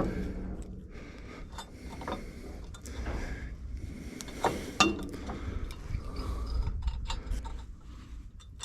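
Scattered light metallic clinks and knocks as the header safety stop on a John Deere 4400 combine is handled and hooked up out of the way.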